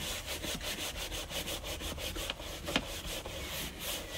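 A stiff hand brush scrubbing wet textured cedar weatherboard in quick, even strokes, several a second, with one louder stroke about two-thirds of the way through. This is the flushing stage, working softened stripper and tinted-acrylic residue loose with paraffin-spirit flusher.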